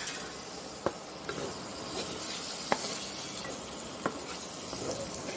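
Chopped tomatoes and onions sizzling in hot oil in a kadai while a spatula stirs and scrapes through them, with a few sharp clicks as the spatula knocks against the pan.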